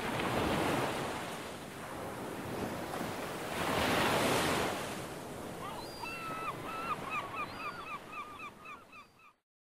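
Surf breaking and washing up a sandy beach, swelling twice. From about six seconds in, a bird calls over the surf in a quick series of short chirps, and the sound fades out near the end.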